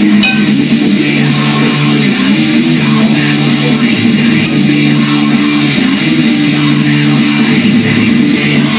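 Schecter electric guitar being played, a line of held notes that change every second or so.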